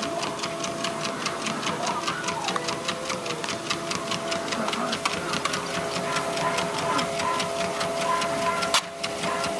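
Treadmill running with a steady motor hum, and a quick even ticking, about five a second, of a small dog's trotting feet on the belt. One sharper click comes near the end.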